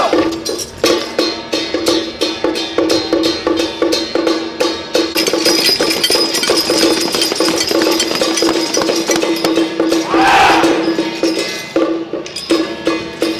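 Song Jiang Zhen troupe's gong-and-cymbal accompaniment beating a quick, steady rhythm over a ringing gong tone, with a loud shout about ten seconds in.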